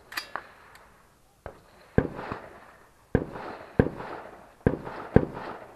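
Rifle shots from a semi-automatic competition rifle fired in a string, mostly in pairs about half a second apart, each shot followed by a short echoing tail.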